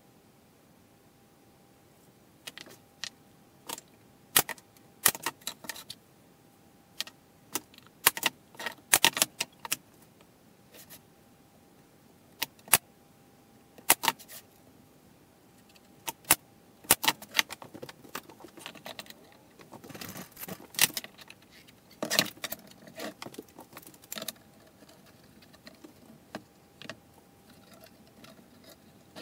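Plywood panels and metal bar clamps clacking and rattling as a box is fitted together and clamped: scattered sharp knocks and clicks, bunching into a busier stretch of clatter a little past the middle.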